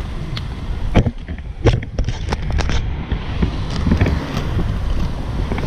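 Three-wheel inline skate wheels rolling on a concrete path, a steady low rumble with wind on the microphone. Several sharp clicks come between about one and three seconds in.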